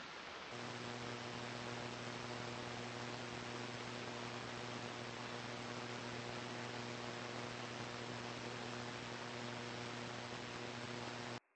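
Shortwave AM static hiss from an online radio receiver. About half a second in, a steady low hum with several overtones joins it, with no pulsing buzzer tones. The sound cuts off suddenly near the end.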